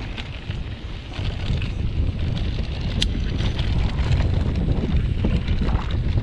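Wind buffeting the camera's microphone as a mountain bike rolls downhill on a dirt trail, with tyres crunching over dirt and gravel and small clicks and rattles from the bike. It grows a little louder after the first second or so, and there is one sharp click about three seconds in.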